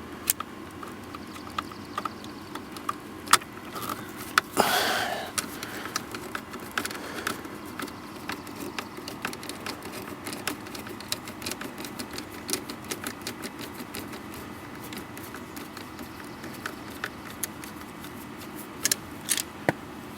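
Small irregular clicks and ticks of a Torx screwdriver working coarse-thread screws out of a plastic ignition switch housing, with a brief louder scrape about four and a half seconds in.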